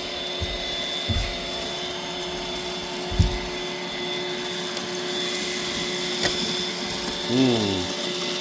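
iRobot Roomba robot vacuum running, a steady motor-and-brush whine with a fixed high tone, with two low thumps in the first few seconds.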